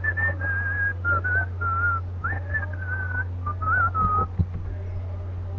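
A person whistling a short tune, a string of held notes stepping up and down, which stops a little over four seconds in. A steady low hum runs underneath.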